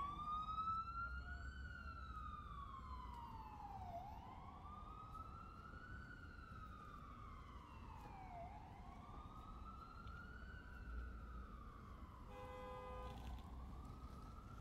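Emergency vehicle siren in a slow wail, its pitch rising and falling about every four seconds, over a low traffic rumble. A brief, steady, horn-like tone sounds near the end.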